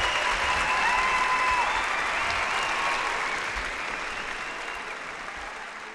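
Large hall audience applauding, the clapping gradually dying away, with a few voices calling out over it in the first two seconds.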